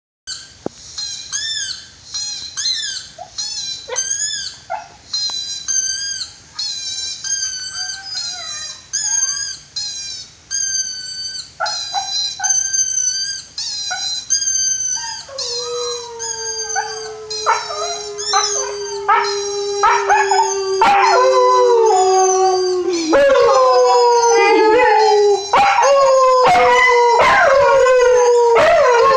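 A young Siberian husky giving a string of short, high-pitched whining calls, one or two a second, then breaking into a long, slowly falling howl about halfway through. The howling grows louder and carries on steadily to the end.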